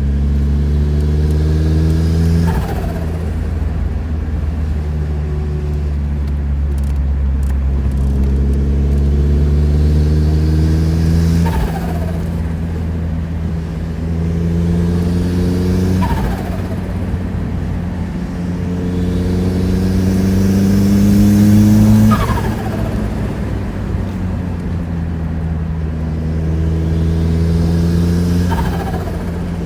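Turbocharged Mazda Miata four-cylinder pulling under boost, its note slowly climbing, then cut off by a throttle lift five times, each lift bringing turbo flutter and a short falling whistle as the turbo spools down. The longest and loudest pull ends about 22 seconds in.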